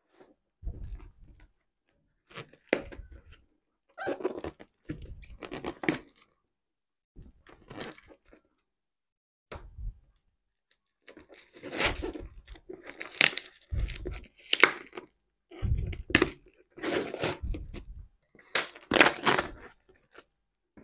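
Plastic stretch wrap crinkling and tearing and scissors cutting through a wrapped corrugated cardboard box, in irregular bursts that get busier and louder in the second half, with a few low thumps as the box is handled.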